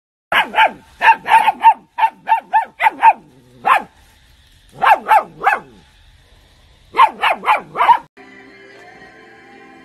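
German Shepherd puppies barking: about twenty short, high, loud yaps in quick runs of three to five, each falling in pitch, with pauses between the runs. About eight seconds in the barking stops and background music takes over.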